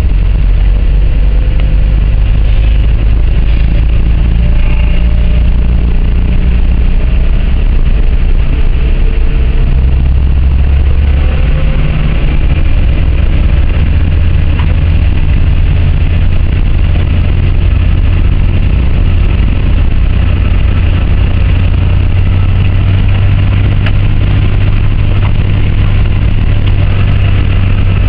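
Car engine and road noise heard from inside the cabin while driving, a loud, steady drone.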